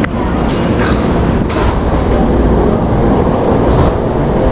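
Tokaido Line electric train running, a steady loud rumble with three sharp clicks in the first second and a half.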